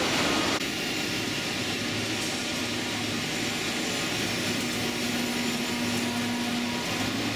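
German ICE high-speed electric train starting to pull out. A steady rush of noise, with several steady humming and whining tones from its electric drive setting in about half a second in.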